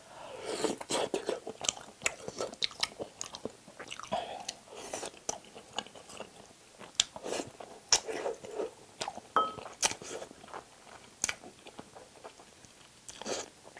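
Close-miked eating sounds of a person chewing spicy braised chicken with wide glass noodles and rice: irregular wet mouth smacks and chewing, with scattered sharp clicks.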